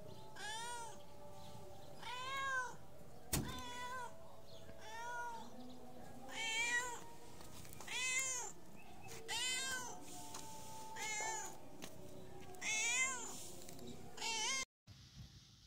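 Domestic tabby cat meowing about ten times, one call every second and a half or so, each call rising and then falling in pitch. These are insistent calls up at a person, asking for food.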